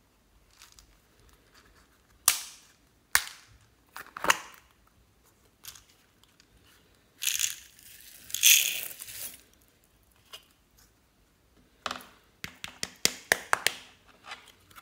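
Hard plastic clicks and snaps from a clear plastic compartment box and its lid as it is unclipped, opened and handled, with two seconds of rattling clatter about halfway through and a quick run of clicks near the end.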